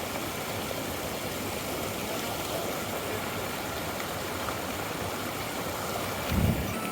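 Steady rush of stream water flowing at the top of a high waterfall, with a brief low thump near the end.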